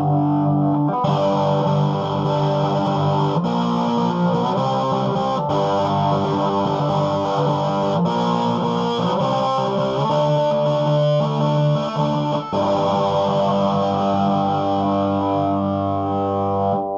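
Electric guitar on its bridge pickup played through a Marshall Lead 12 solid-state amp with the gain all the way up, giving an overdriven, distorted tone. Sustained chords and notes change every few seconds and cut off sharply near the end.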